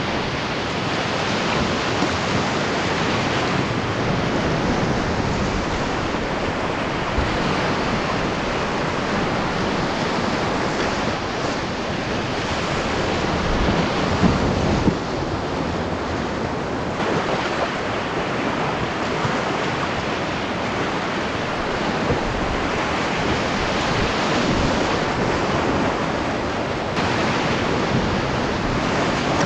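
Whitewater rapids rushing close around an open canoe, a steady, loud noise of tumbling water, with a couple of louder splashes about halfway through.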